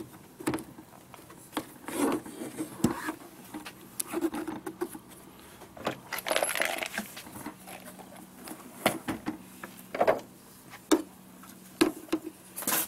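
Handling noise as tool parts are packed into a foam-lined aluminium tool case: scattered irregular clicks, knocks and light clattering, with a longer rustle about six seconds in.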